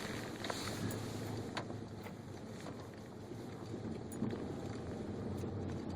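Car driving slowly through snow, heard from inside the cabin: a steady low engine and road rumble with a few faint clicks.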